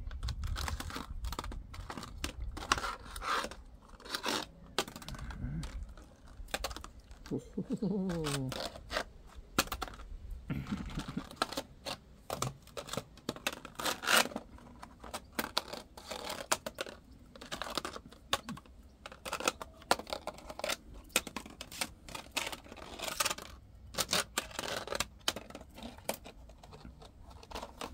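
Goffin's cockatoo pushing a small plastic plant pot about on stone paving with its beak: irregular clicks, knocks and scrapes of plastic on stone.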